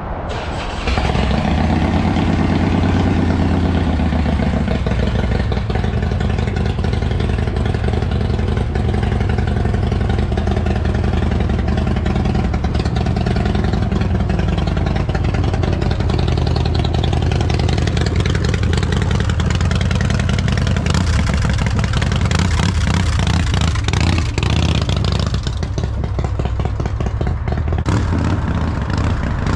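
Harley-Davidson Road King's fuel-injected 103-cubic-inch stroker V-twin starting about a second in, briefly revving up, then running at a steady idle.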